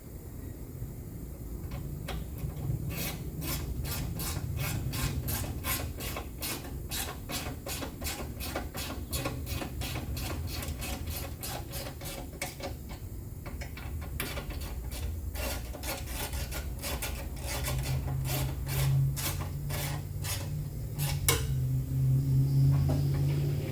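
Hand ratchet wrench run in repeated strokes, its rasping clicks coming about three a second in two long runs, as the fender bolts are snugged up.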